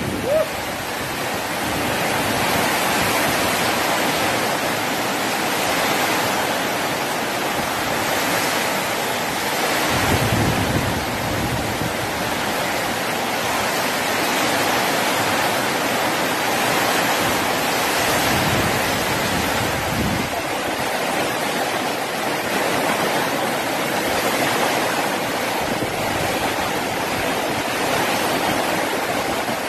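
Heavy rain falling in a strong wind: a steady hiss of downpour, with gusts buffeting the microphone about ten and twenty seconds in.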